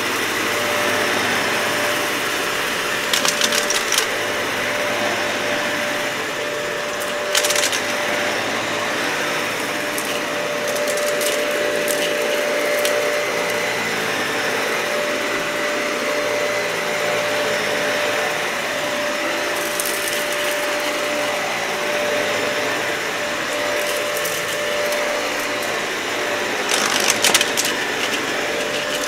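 Dyson vacuum cleaner running steadily over a matted, dirty carpet, with a constant whine, and several short bursts of crackling as debris is sucked up.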